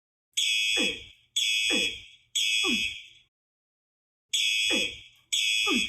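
Fire alarm sounding in five short, loud blasts, each under a second long with a one-second pause near the middle. A lower tone falls in pitch under each blast.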